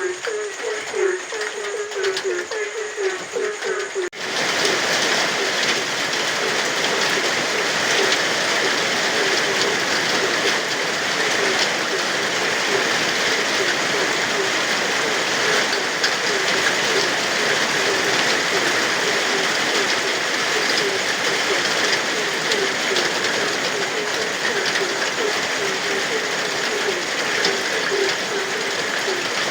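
Frogs croaking in quick repeated calls; about four seconds in, steady rain comes in suddenly and keeps on, with the frogs still croaking under it.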